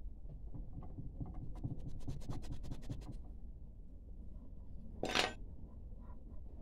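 Metal cookie cutter pressed and worked through soft cookie dough on a baking tray: a quick run of small scratchy ticks, then one short louder scrape about five seconds in.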